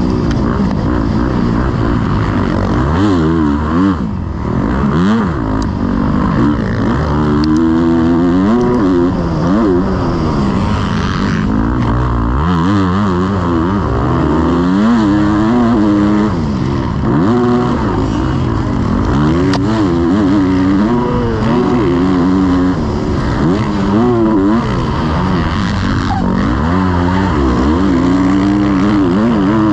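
Motocross bike engine revving hard, its pitch rising and falling over and over as the throttle is opened and closed through the gears, with a rushing noise underneath.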